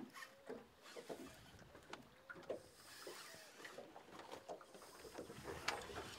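Faint, irregular clicks and knocks from a baitcasting reel and rod being worked from a boat while a hooked fish is reeled in.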